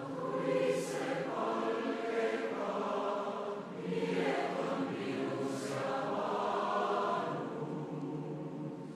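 Massed choir singing a slow, sustained choral passage, the phrases swelling and easing and tapering off near the end.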